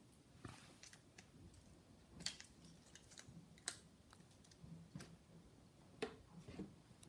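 Faint, scattered light taps and scratches, about five in all, from a kitten's paws and claws on a hard floor as it pounces on and bats at a strip of paper.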